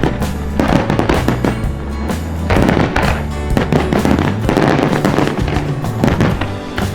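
Fireworks bursting and crackling in rapid succession over loud music with sustained low notes.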